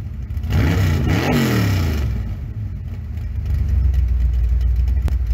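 Car engine revved twice in quick succession, then settling to a steady, low idle rumble.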